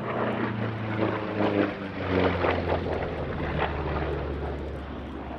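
Republic P-47 Thunderbolt's Pratt & Whitney R-2800 radial engine running as the fighter flies past, its pitch falling as it goes by. It is loudest about two seconds in.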